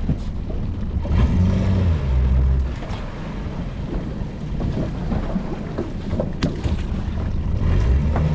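Fishing boat's engine running under wind noise on the microphone, its pitch rising and falling briefly about a second in and again near the end. A sharp knock about six seconds in.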